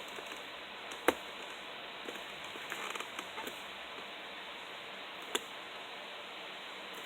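Plastic and cardboard headphone packaging being handled and pried at: a few scattered clicks and small ticks, a sharp one about a second in and another about five seconds in, over steady hiss.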